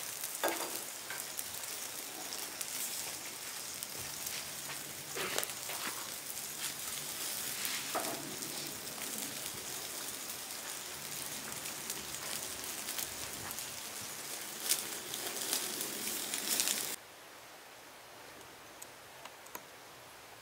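Whole fish sizzling in a wire grill basket over an open wood fire: a dense, crackling hiss with a few sharper pops. About three seconds before the end it cuts off suddenly and gives way to a much quieter outdoor background.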